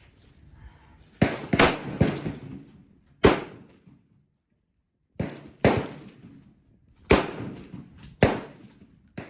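Gunshots on an outdoor shooting range: about nine sharp reports, several in quick succession, each trailing off.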